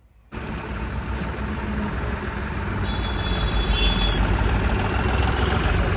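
Diesel tractor engine running hard, starting abruptly just after the start and growing a little louder, with a brief high whine about halfway through.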